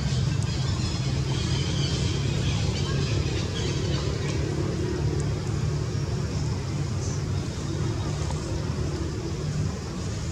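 A steady low rumble of a motor vehicle, with faint voices.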